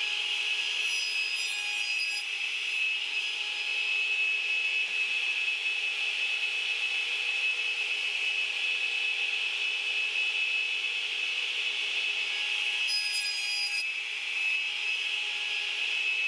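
Radial arm saw running with a steady, high-pitched whine while plywood drawer sides are crosscut to length. The sound changes briefly about a second in and again near the end.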